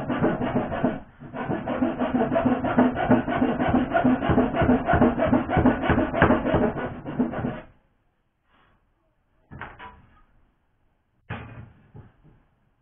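Hand saw cutting through a timber batten with rapid back-and-forth strokes, stopping about eight seconds in. Then a few short wooden knocks as lengths of timber are handled and set down.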